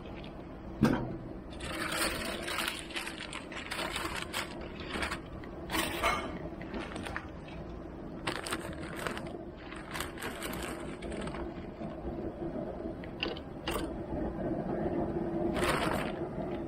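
A sharp click about a second in, then scattered short rustles and scrapes of handling at the grill over a steady low hum.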